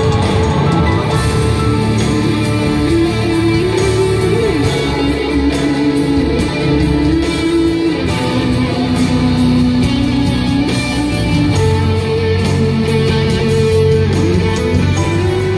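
Live band playing an instrumental passage on guitars and bass guitar: strummed chords under a sustained melody line that bends in pitch a few times.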